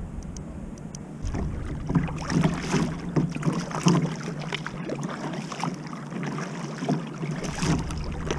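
Water splashing and slapping against a moving kayak's hull in irregular splashes, starting about a second in.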